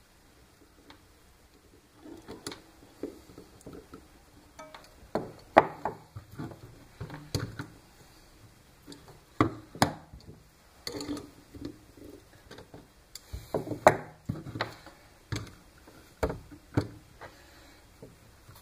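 Irregular clicks, taps and knocks of a length of stiff wire being worked with needle-nose pliers and laid on a wooden workbench. A few of the knocks are much sharper than the rest.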